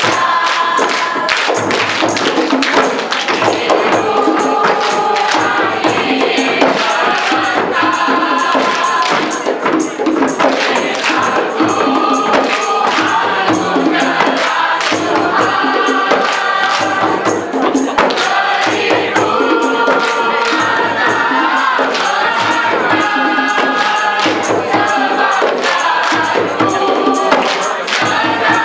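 Dikir barat: a large seated chorus singing together over hand drums and rhythmic clapping, with a steady beat.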